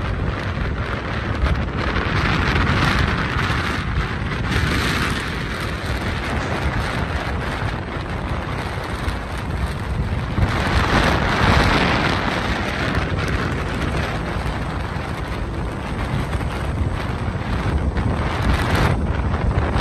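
Jet noise from a taxiing C-5M Super Galaxy's four turbofan engines, a steady rush that swells for a couple of seconds about halfway through, mixed with wind buffeting the microphone.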